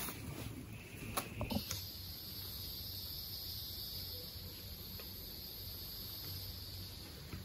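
A few rustles and light knocks of nylon tent fabric being handled in the first second and a half, then a steady high-pitched insect drone in the forest that comes in suddenly and holds.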